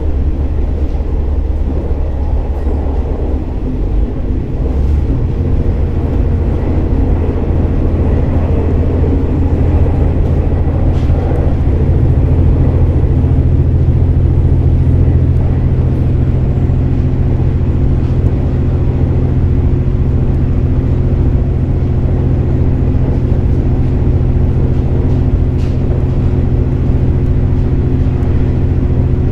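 KiHa 47 diesel railcar running, heard from on board: a steady diesel engine drone whose note grows stronger about twelve seconds in. A few faint clicks come from the rails.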